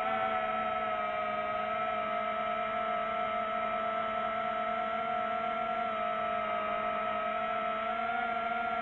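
DJI FPV drone's motors and propellers whirring, a hum of several tones held at a steady pitch.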